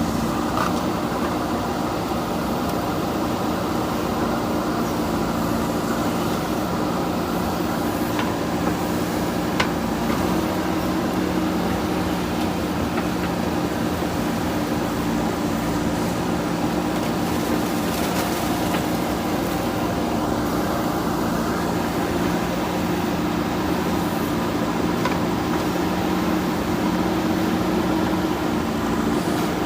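JCB backhoe loader's diesel engine running at a steady pitch, with a few faint knocks now and then.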